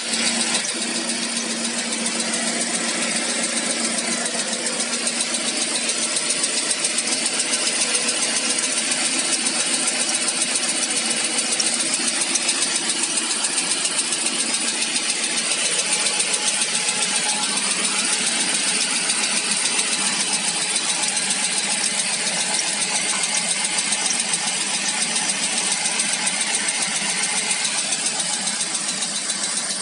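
ZMZ PRO four-cylinder petrol engine running steadily with a rapid, even knock. The owner hopes it is only a hydraulic valve lifter.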